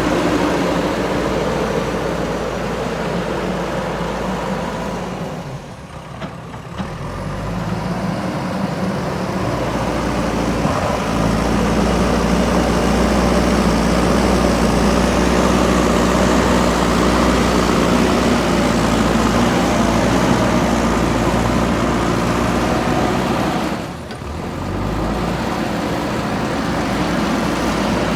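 JCB 3DX backhoe loader's diesel engine running under load while working soil, its level dipping briefly twice, about six seconds in and again a few seconds before the end, then rising again.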